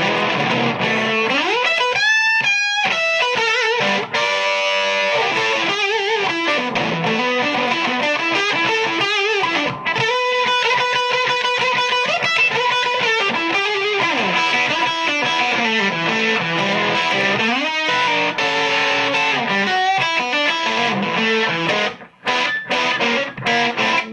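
Electric guitar played through a Victoria VIC105 'Ammo' EL84 valve amplifier: a run of rock and blues lead licks with string bends and slides, turning into short choppy notes with brief gaps near the end.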